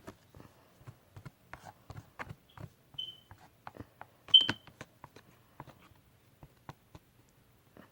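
Toothpaste-and-hand-sanitizer slime being worked by hand: an irregular run of small sticky clicks and ticks, with two short high squeaks near the middle, the second the loudest.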